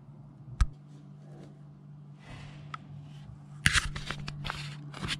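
Clicks and rustling as a hand handles an electro-mechanical pinball relay and its bundled wiring, with a sharp click about half a second in and a busier run of clicks and rustle near the end. A steady low hum runs underneath.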